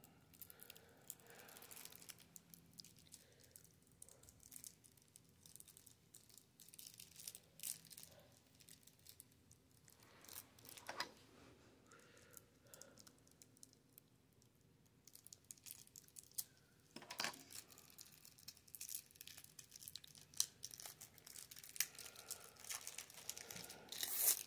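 Clear plastic shrink-wrap being picked at, torn and crinkled off a boxed card deck: faint, scattered crackles with a short lull partway through, growing busier and louder near the end.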